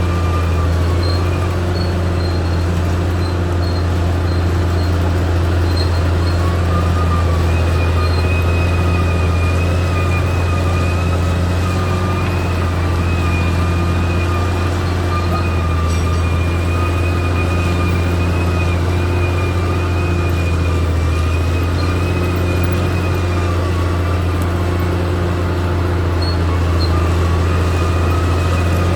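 Caterpillar D6R XL bulldozer's diesel engine running steadily, a low drone with a thin wavering whine above it that fades out and comes back.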